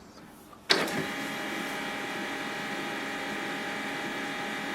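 HP LaserJet M141we laser printer's internal mechanism starting with a sharp click under a second in, then running steadily with a whir of several fixed tones as the printer initialises after the toner cartridge is installed and its lid closed.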